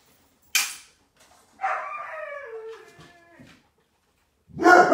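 Puppy vocalising: a short breathy burst, then a whining call that slides down in pitch for about two seconds, then a loud bark near the end.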